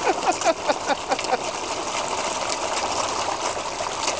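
Water splashing and churning steadily as a dense crowd of carp thrash at the surface, begging for food. A quick run of short falling calls sounds during the first second and a half.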